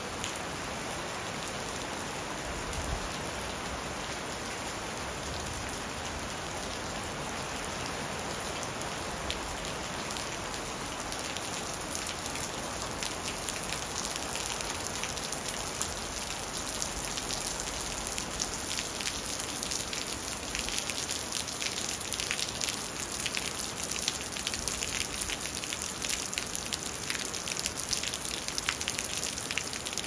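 Steady rain falling, a constant hiss, with sharp individual drop hits on a surface growing more frequent and louder from about halfway through.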